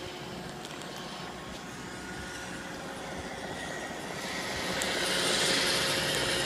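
iRobot Roomba 650 robot vacuum running its cleaning cycle, a steady mechanical whir that grows louder about four seconds in.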